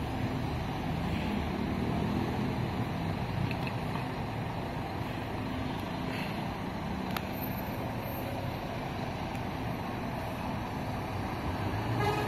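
Diesel engine of a Scania K410 double-decker coach running at low revs as the coach pulls slowly away, a steady low hum. There is one sharp click about seven seconds in and a brief rise in level near the end.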